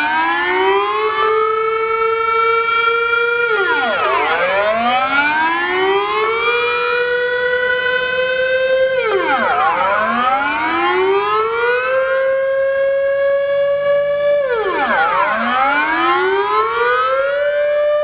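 Dutch air-raid warning siren sounding its test wail: the pitch rises, holds briefly, then drops sharply, repeating about every five and a half seconds.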